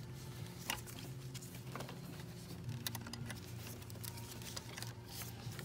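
Scattered light clicks and taps of hands handling small parts among the hoses and connectors under the hood, over a steady low hum.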